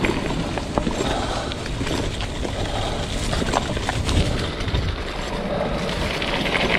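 Yedoo Mezeq kick scooter rolling fast along a bumpy dirt trail: its knobbly tyres rumble over the ground, with scattered rattles and knocks from the scooter and wind buffeting the microphone.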